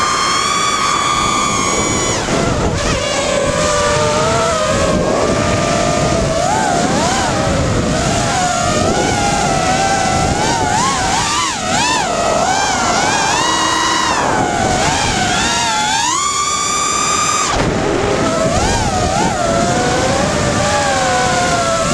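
Five-inch FPV racing quadcopter with Cobra 2204 2300kv brushless motors spinning 5x4x3 triblade props, heard from the onboard GoPro: a high motor-and-prop whine whose pitch follows the throttle. It climbs high and holds for a couple of seconds at the start and again about two-thirds of the way through, and warbles quickly up and down in between.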